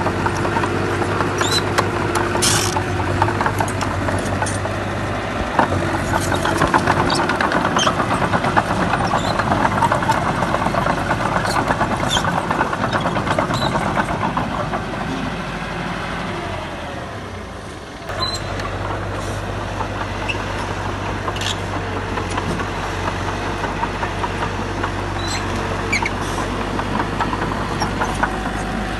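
Heavy diesel earthmoving machinery, a Komatsu D31P crawler bulldozer, running steadily with a low engine hum and scattered metallic clanks and knocks. The sound sags and then changes suddenly about two-thirds of the way through.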